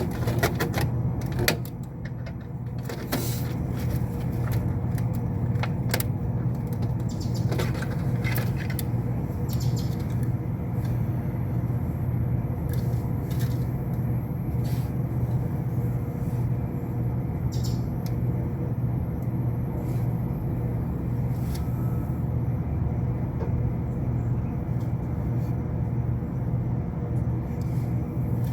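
Steady low hum of running HVAC machinery, with scattered sharp clicks and taps of hand work at the unit's control panel, most of them in the first several seconds.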